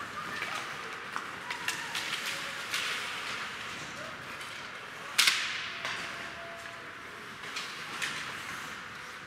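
Ice hockey play in an indoor rink: skates scraping and sticks clicking on the ice, with one loud, sharp crack about five seconds in that rings on in the arena's echo.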